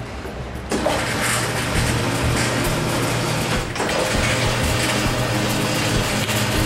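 Electric motor, rollers and conveyor belts of a SPAR MIXER dough sheeter running as dough passes through: a steady low hum with a hissing noise that starts about a second in and dips briefly about halfway through.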